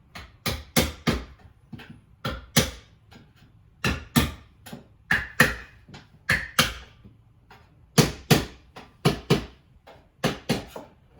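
Hammer tapping nails in to fasten a wooden window stop back in place: a long series of sharp blows in quick groups of two or three.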